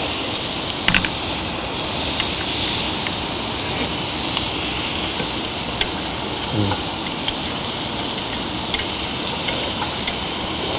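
Marbled beef ribeye sizzling steadily as it fries on a grill, with a couple of light clicks.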